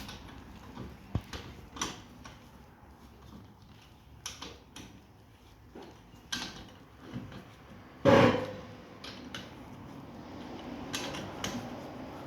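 A wrench working on a car's wheel nuts as they are given a final tightening: scattered metallic clicks and knocks, with one loud clank and a short ring about eight seconds in.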